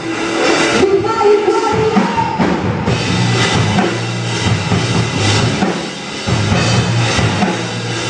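Amateur rock band playing live at a sound check: drum kit and electric guitars, with the drum hits coming through more strongly after about three seconds.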